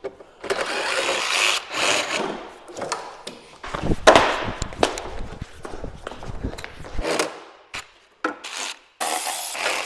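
Hand-tool work on a car's front end: irregular scraping and rubbing of tools against parts, with several sharp knocks.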